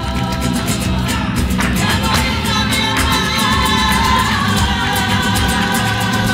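Live flamenco music: singing voices holding long, wavering notes over guitar accompaniment, with sharp percussive hits scattered through it.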